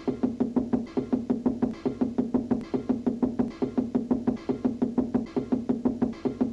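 Cartoon score music over a fast, even run of knocks, about six a second, that repeats without a break: a cartoon cat's fist knocking on a wall, looped.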